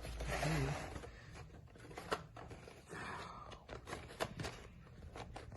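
Cardboard and plastic packaging being handled and pulled open: rustling and scraping, with a string of sharp clicks and taps.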